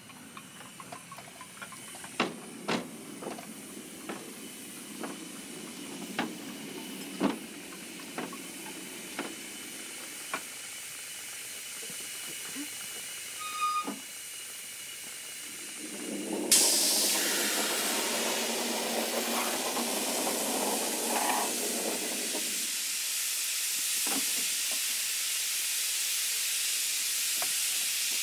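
Miniature live-steam Britannia Pacific locomotive, 70008 Black Prince: a scattering of sharp knocks in the first ten seconds, then steam hissing that starts suddenly about sixteen seconds in and carries on steadily, the loudest sound.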